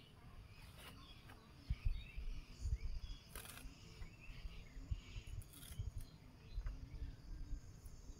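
Quiet rural ambience of faint bird chirps and soft low thumps, with a few light clicks as bottle gourd leaf stems are snapped and trimmed against a curved bonti blade; the sharpest click comes about three and a half seconds in.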